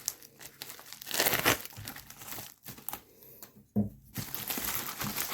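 Packaging being handled and opened by hand, with irregular crinkling and rustling in bursts that grow busier in the last second and a half.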